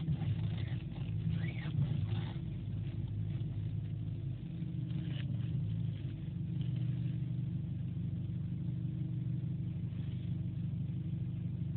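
Luxgen U7 SUV idling steadily, with a few short squeals in the first couple of seconds: the steering-rack noise it makes when the wheel is turned, back again four years after the rack was replaced.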